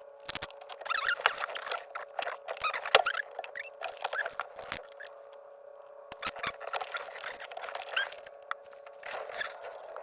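Plastic dash trim and phone-mount parts being handled and fitted: irregular clicks, squeaks and scrapes, over a steady hum.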